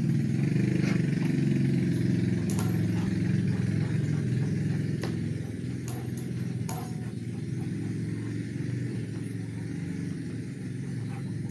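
A motor engine running steadily, a low hum that fades gradually, with a few sharp clicks on top.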